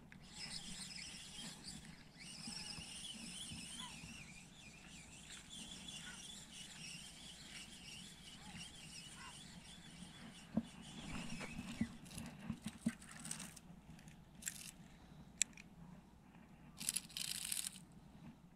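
Spinning reel being cranked to bring in a small fish, its retrieve a faint, wavering whirr, with scattered clicks of handling. A short burst of noise near the end as the fish is lifted out of the water.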